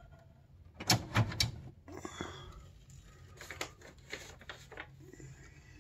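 RCA SelectaVision CED VideoDisc player's function lever being worked by hand: a quick cluster of sharp mechanical clicks and clunks about a second in, then a short scrape and scattered lighter clicks.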